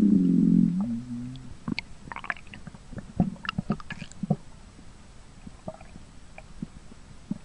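A pet skunk's stomach growling: a loud, wavering pitched rumble that dies away about a second in, followed by a fainter hum, then scattered small gurgles and clicks.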